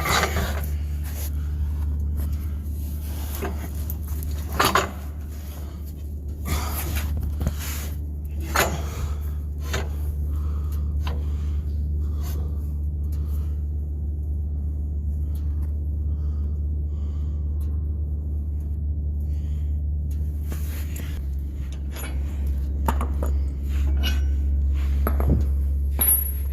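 Scattered metallic clinks, knocks and rattles of tools and parts being handled during car work, fewer in the middle stretch, over a steady low hum.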